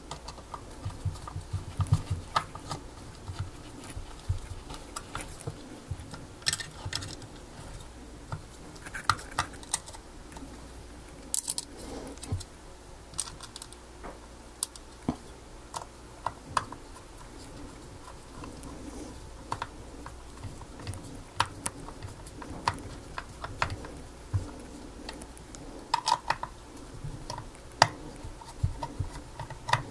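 Small screws being fitted by hand into the metal housing of a car's rear wiper motor: scattered light clicks, taps and scrapes of metal parts and a hand screwdriver at irregular intervals.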